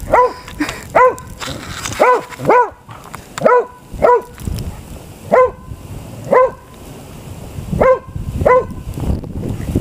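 A dog barking: around ten short, high-pitched barks, often in quick pairs, with gaps of up to about a second and a half between them.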